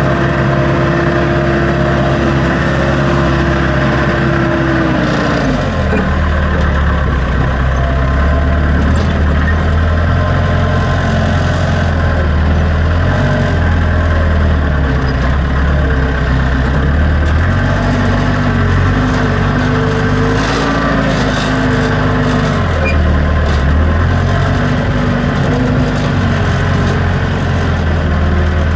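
Backhoe's diesel engine running loud and steady. It runs at a high, even speed, drops to a lower speed about five and a half seconds in, then rises and falls as the machine works.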